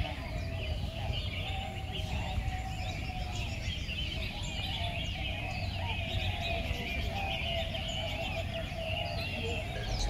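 A chorus of many caged songbirds singing and chirping at once, with overlapping warbles and quick chirps throughout, over a steady low rumble.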